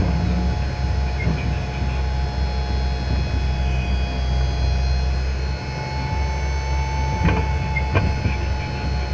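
John Deere 8430 tractor and 1790 planter running steadily: a low engine rumble under a steady high whine, with two sharp knocks about seven and eight seconds in.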